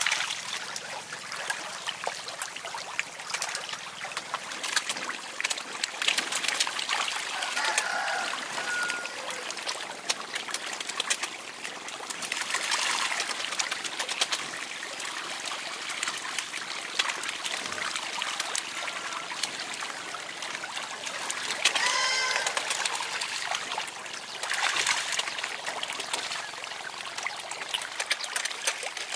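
Shallow pond water splashing and trickling, full of fine patters, as a crowd of small fish flap and thrash at the surface. A short pitched bird call comes a little past the middle.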